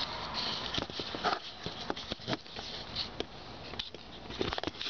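Rustling with irregular light clicks and knocks: hands, a socket ratchet and the handheld camera being handled while working on the crankshaft position sensor bolt under the car.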